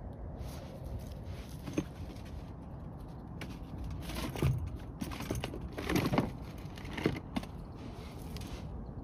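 Rustling with a scatter of knocks and clinks, as gear is handled in a collapsible fabric bin. The handling is busiest about halfway through, over a steady low wind rumble.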